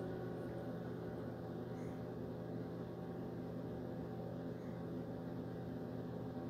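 Ambient background music: a steady drone of sustained low tones with no beat.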